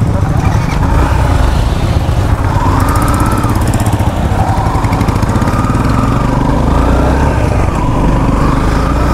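Yamaha FZ-X motorcycle's single-cylinder engine running under way, its pitch rising and falling a little, under heavy wind rumble on the microphone.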